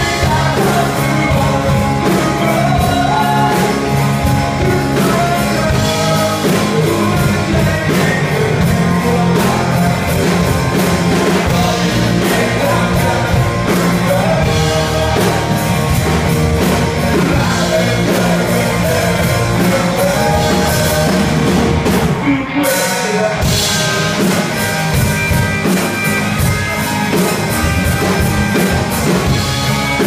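A rock band playing live: electric guitars, bass and drum kit with a vocalist singing into a microphone. The band breaks off briefly about two-thirds of the way through, then comes straight back in.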